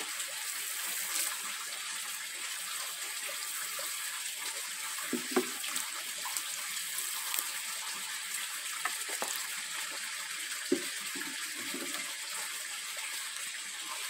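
Watering can sprinkling a fine spray of water onto freshly sown soil: a steady hiss of falling water, with a couple of brief knocks.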